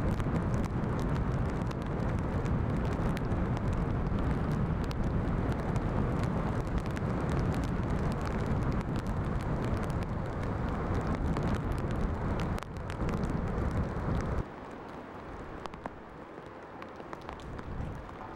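Storm wind buffeting the microphone over the rumble of heavy surf: a loud, steady rush with scattered crackles. About three-quarters of the way through it drops to a quieter, thinner wind hiss without the low rumble.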